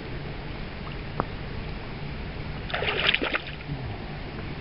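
A freshly netted trout splashing in the landing net in a short burst about three seconds in, over the steady wash of river water. A single light click about a second in.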